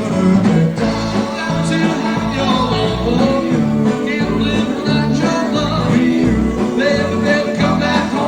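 Live band playing a doo-wop song: a steady pulsing bass line under guitar, with singing.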